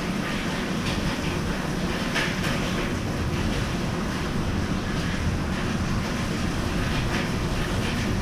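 Steady rushing noise of water on a flooded balcony, with a few short splashes standing out.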